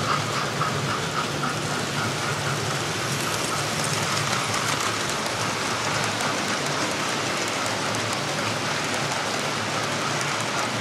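Several model trains running at once on a layout: a steady rattling hiss of small electric motors and metal wheels on track, with fine ticking throughout.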